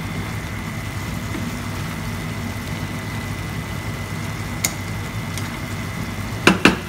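A steady low motor-like hum with a faint high whine running over it. A light click a little past halfway, then two sharp knocks close together near the end.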